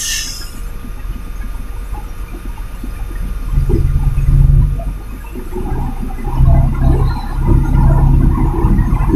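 Tractor-trailer truck's diesel engine and road rumble, a steady low drone that grows louder and throbs from about three and a half seconds in as the engine works harder. A brief hiss sounds at the very start.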